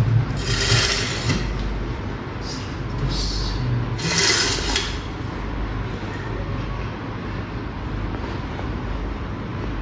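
Overhead X-ray tube and collimator assembly being pulled and slid into position: two sliding, rumbling bursts about a second long, one near the start and one about four seconds in, over a steady low hum.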